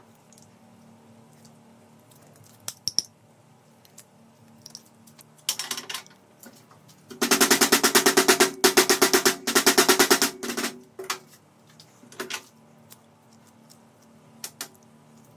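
Restored hammer drill switched on in short bursts, its hammer mechanism beating out a fast, even rattle of blows: one brief burst, then two longer ones of about a second and a half. A few handling clicks come before and after.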